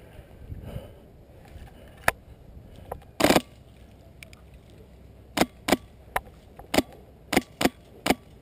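Airsoft gunfire: a single sharp crack about two seconds in, a short burst just after three seconds, then seven single shots roughly half a second apart over the last three seconds.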